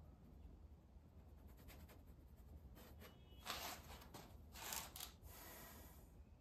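Faint scratchy rubbing of a paintbrush working oil paint, a few short strokes in the second half, the loudest two a little past the middle, over a low steady hum.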